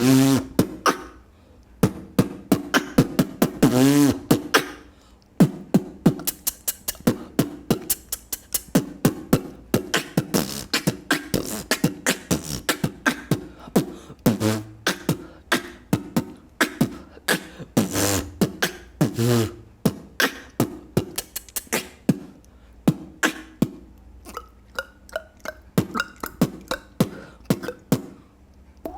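Solo vocal beatboxing: fast, dense mouth-made kick and snare clicks in a steady rhythm, with short hummed bass notes at about 4 s and again around 18 to 19 s. The pattern thins out over the last few seconds.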